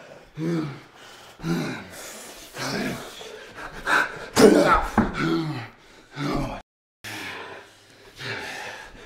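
A man's voice making wordless groans and gasps in short bursts, several falling in pitch. It cuts out briefly about six and a half seconds in, then heavy breathy sounds follow.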